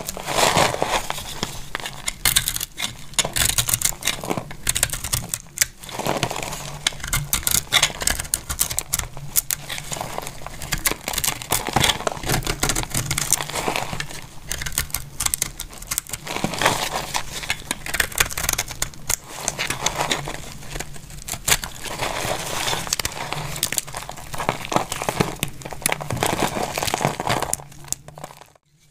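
Dry, brittle bar soap being crushed and crumbled by hand and sliced with a thin knife blade: a dense, irregular crackling and crunching. It breaks off briefly near the end.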